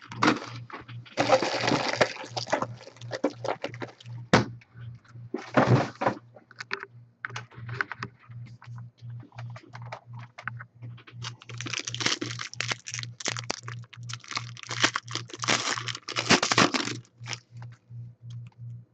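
Trading card box and its plastic wrapping torn open and the cards handled: irregular crackling and tearing in several stretches, with small clicks between, over a faint low hum that pulses about twice a second.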